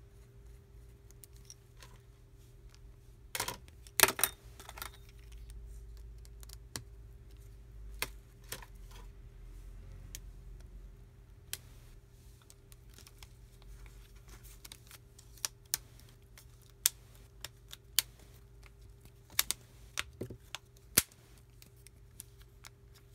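Small sharp metallic clicks and taps of a precision screwdriver and tiny screws against a smartphone's frame and the workbench, coming irregularly, with a loud cluster about four seconds in and a run of clicks in the last third. A faint steady hum lies underneath.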